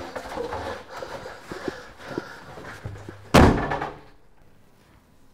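A door slammed shut about three and a half seconds in, the loudest sound here, after a few seconds of shuffling movement and light knocks.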